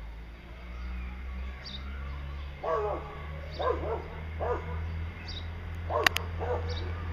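A string of five short animal calls, starting about three seconds in, with a faint high chirp repeating every couple of seconds behind them. Two sharp clicks come about six seconds in.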